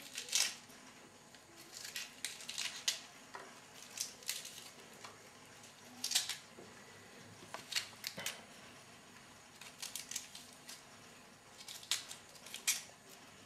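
Crisp, short scraping and snapping sounds, one every second or two at irregular intervals, as the tough central choke is dug out of a Roman artichoke.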